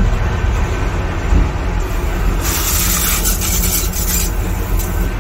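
Steady low rumble of a train coach in motion, heard from inside the toilet compartment. About two and a half seconds in, a loud hissing rush sets in and lasts about two seconds.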